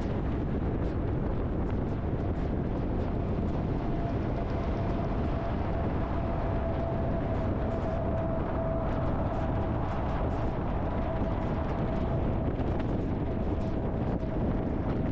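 Steady road and wind noise from a car driving at speed, with a faint steady whine for several seconds in the middle.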